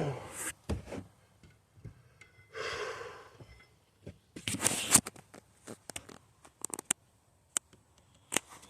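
Scattered clicks, knocks and brief scraping of objects being handled and shifted, with a louder cluster of knocks about halfway through.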